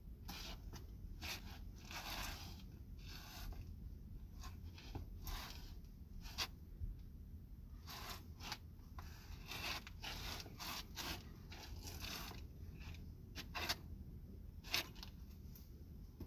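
Faint, irregular scraping and rustling of a person dancing: shoes scuffing on the floor and clothing brushing as he moves, in short uneven bursts.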